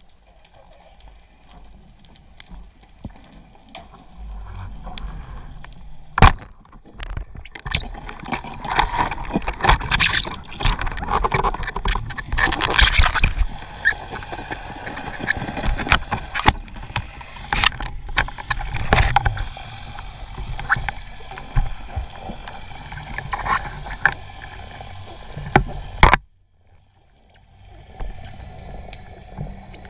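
Water sloshing and gurgling close to the microphone, with many scattered sharp clicks and knocks and one loud crack about six seconds in. The sound drops out for about a second near the end.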